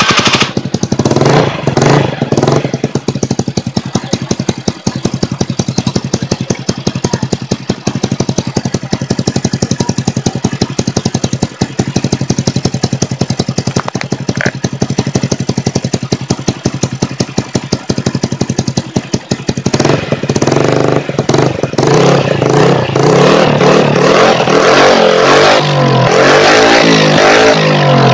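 Honda Vario 125 scooter's single-cylinder four-stroke engine running through its hollowed-out stock muffler, baffles removed to make it loud. It idles with an even exhaust beat, then is revved up and held higher from about two-thirds of the way in. The owner says the engine is not quite healthy.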